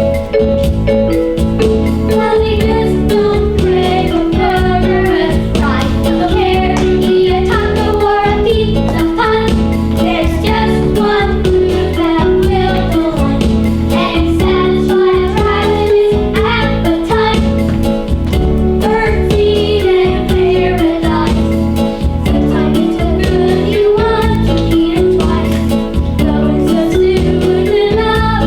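A song with a steady beat and voices singing over it.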